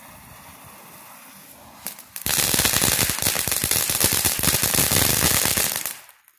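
Phantom Fireworks Golden Pine Forest fountain spraying with a steady hiss, then about two seconds in breaking into its loud crackle: a dense, rapid run of sharp pops that lasts about four seconds and dies away near the end.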